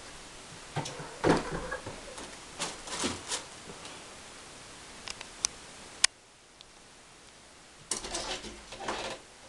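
A cat jumping between furniture: a few thuds and knocks as it lands and scrabbles, with a single sharp click about six seconds in. Near the end comes a cluster of scrabbling knocks as it leaps onto a wooden door and clings to it.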